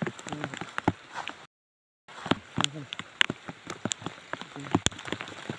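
Water drops tapping irregularly on a makeshift banner shelter after rain, with faint voices in the background. The sound cuts out completely for about half a second near the start.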